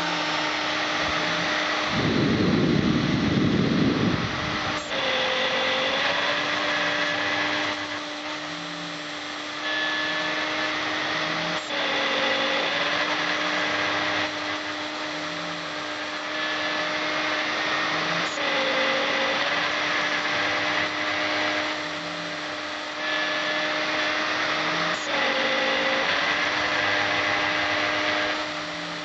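Desktop CNC mill milling: the spindle runs steadily while the stepper-driven axes move the cutter through passes that repeat about every seven seconds. A louder low rumble comes about two seconds in and lasts about two seconds.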